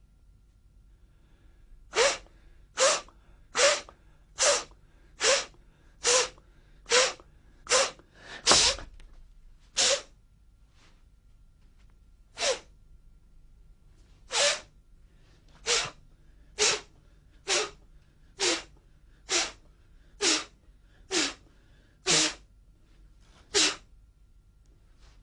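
Forceful, explosive breaths, about twenty short sharp exhalations roughly one a second, following the qigong combat breathing method of a martial arts routine. There is a pause a little before the middle, and one longer, louder breath about a third of the way in.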